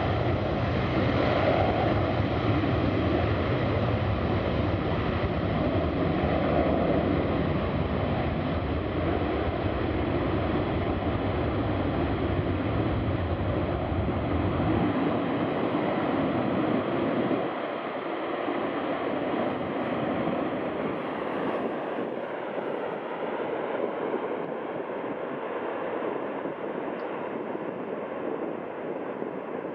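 Jet roar of a Boeing E-3A AWACS's four TF33 turbofan engines at takeoff power, a steady rushing noise that slowly fades as the aircraft climbs away. The deep rumble drops out about halfway through, leaving a thinner, quieter roar.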